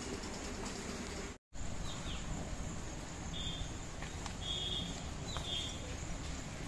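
Outdoor rural ambience: a steady low rumbling noise, with a brief dropout about a second and a half in, and several short high bird chirps, some falling in pitch, in the second half.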